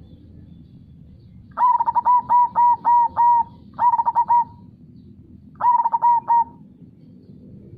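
Zebra dove (perkutut) cooing in three phrases: a run of about six quick notes, then two shorter runs of three or four notes. Under it is a steady low rush of flowing river water.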